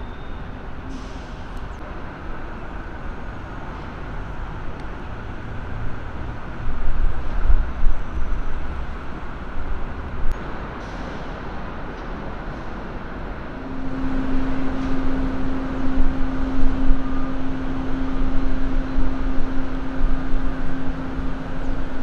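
Road traffic and vehicle noise, steady, swelling in places, with a steady low hum joining about two-thirds of the way in.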